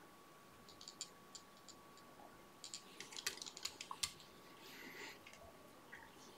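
Faint scattered clicks and ticks, thickest about three to four seconds in, and a brief soft rustle near the end, from hands working tying thread and feather fibres on a hook held in a fly-tying vise.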